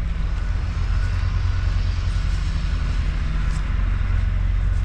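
Steady low rumble of idling diesel semi-truck engines.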